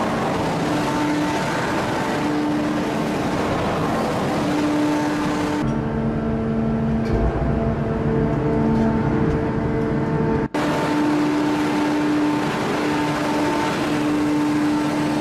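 Steady hum and rumble of a heavy open-die forging press working a red-hot steel billet, with several steady machine tones over a broad noise. The sound changes abruptly about six seconds in and drops out for an instant about ten and a half seconds in.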